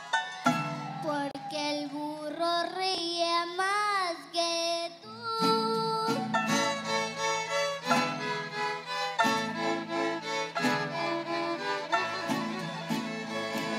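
Children's mariachi band playing. It opens with a slow, gliding melody line with wide vibrato. About five seconds in, the full band comes in with violins, trumpets and rhythmic guitar strumming.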